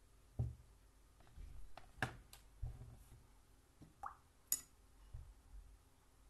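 Painting gear being handled on a desk: a few soft knocks and small clicks of a watercolour brush and its water jar, with a sharp clink about four and a half seconds in.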